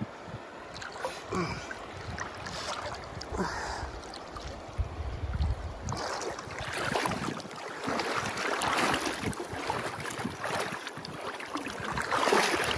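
Shallow river water rushing and splashing close to the microphone, in uneven surges that grow louder about halfway through, with occasional low wind rumble on the microphone.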